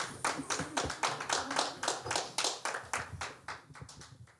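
Audience clapping, thinning out and dying away near the end.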